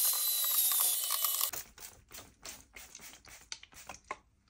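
Handheld electric air duster blowing a steady, loud hiss with a high motor whine, stopping suddenly about a second and a half in. Then come faint scattered clicks and taps of handling inside the PC case.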